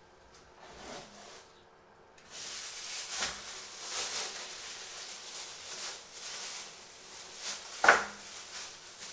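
Thin plastic bag crinkling and rustling as a piece of raw meat inside it is handled, with a sharp thump near the end, the loudest sound.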